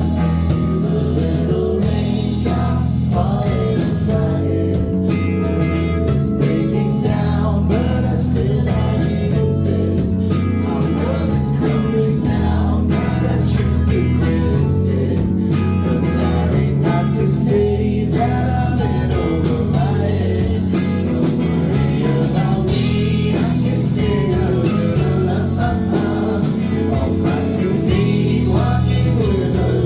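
A live band playing a rock song: electric guitar, bass and drums, with a singer's voice over them at times.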